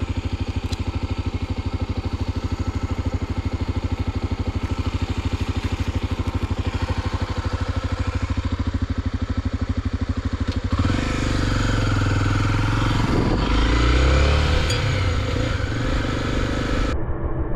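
Single-cylinder engine of a Honda XR250 Tornado motorcycle idling with an even, quick pulse; about eleven seconds in it turns louder and rougher as it takes throttle and pulls away.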